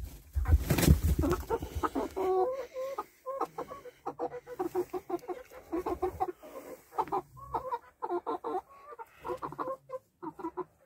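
Black bantam Cochin hen clucking in quick runs of short notes. A loud rustle of handling comes in the first second or so.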